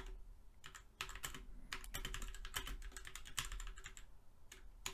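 Typing on a computer keyboard: irregular runs of key clicks, over a faint steady hum.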